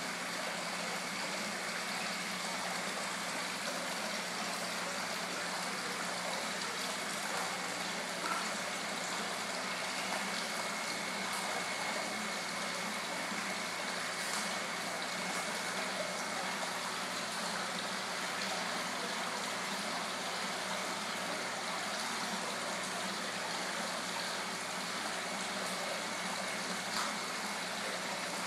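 Water from the koi pond's waterfall and jet return running steadily into the pond.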